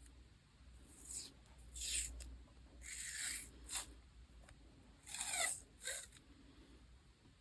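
Close-up handling of paper and stickers while decorating a diary: six short, scratchy rasps, like stickers or tape being peeled and paper being rubbed, the longest about five seconds in.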